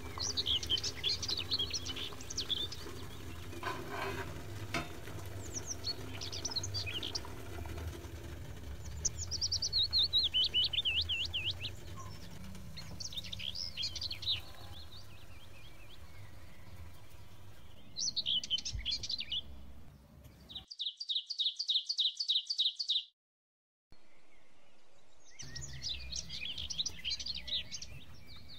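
Songbirds chirping and warbling in many short phrases over a low steady hum. Near the end a fast, even trill of chirps cuts off into a moment of silence before the chirping resumes.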